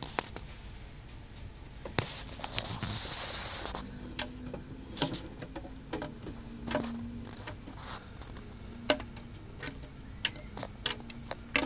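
Bearded dragon eating: irregular sharp clicks and crunches of its jaws on food, with a rustle about two seconds in.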